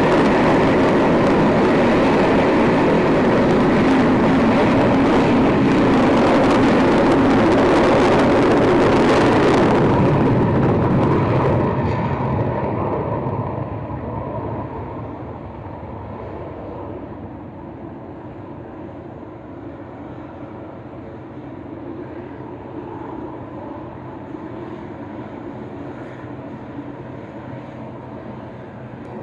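An aircraft departing under full power: loud engine noise for about the first ten seconds, then fading away over the next few seconds to a much quieter, steady background noise.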